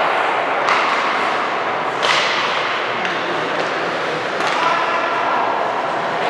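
Basketball game sounds in a gym: a basketball thudding on the court a few times over a steady din of players and spectators.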